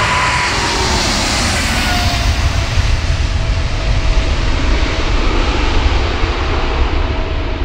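Air New Zealand Boeing 777-300ER's twin GE90 turbofan engines at departure power. A loud jet noise with a deep, crackling rumble, and an engine whine that slides down in pitch in the first couple of seconds as the airliner passes. The higher hiss dulls near the end as it moves away.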